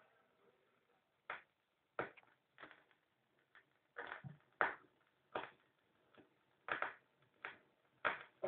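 Turntable stylus riding a silent stretch of groove on a 7-inch vinyl single: faint surface hiss with sharp pops, many about 1.3 s apart, once per turn of a 45 rpm record, the mark of a scratch or speck of dust on the disc.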